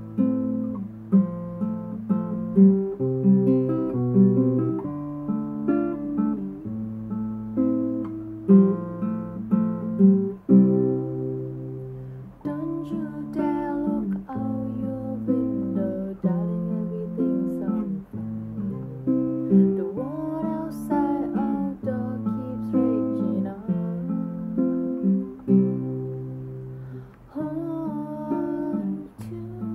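Nylon-string classical guitar played fingerstyle: picked chord notes over low bass notes that ring on for a second or two at a time, in a slow, steady rhythm.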